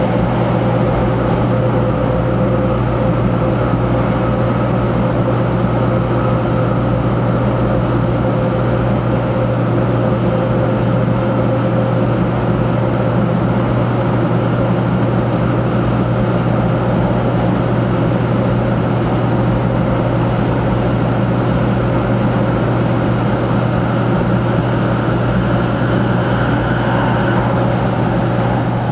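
Cabin noise of a 500 series Shinkansen running through a tunnel: a steady rushing rumble with a constant hum underneath.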